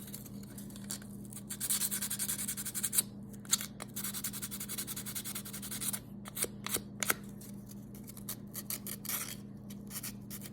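Sandpaper rubbed back and forth by hand over cured JB Weld epoxy on a metal cooler latch, in runs of quick scratchy strokes with short pauses, sparser in the second half. A low steady hum runs underneath.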